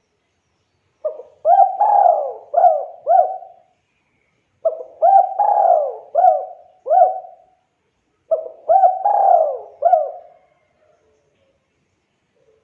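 Spotted dove (tekukur) cooing: three phrases of about five hooked coos each, with a short pause between phrases.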